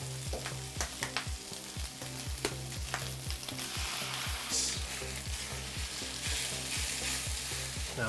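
Egg and rice frying in a hot carbon steel pan, sizzling, while a spatula scrapes and knocks against the pan in quick, regular stirring strokes, about three or four a second.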